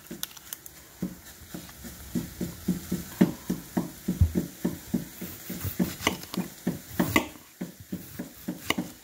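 An onion being handled on a marble countertop: crackling of its dry papery skin and short knocks, with a dull thump about four seconds in as it is set down. Near the end a knife starts slicing it into rings.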